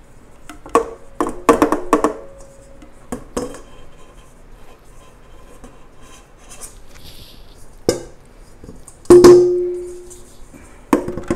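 Kitchen bowls and utensils knocking and clinking against a mixing bowl as flour is poured in: a cluster of clinks about a second in, and a loud knock about nine seconds in that leaves the bowl ringing briefly.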